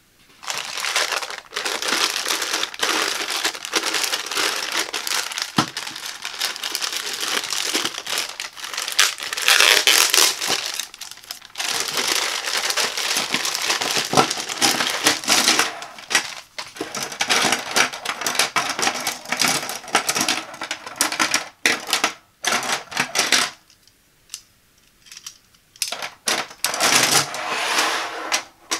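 Clear plastic bag crinkling and rustling close to the microphone as it is handled and opened. Near the end the crinkling thins out into scattered sharp clicks of plastic hangers knocking together as they are taken out, with a last short spell of crinkling.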